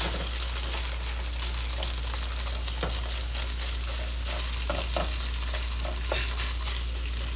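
Thin-sliced marinated beef sizzling steadily in oil in a nonstick skillet over turned-down heat, stirred with a silicone spatula. A few faint taps and scrapes of the spatula against the pan come in the middle.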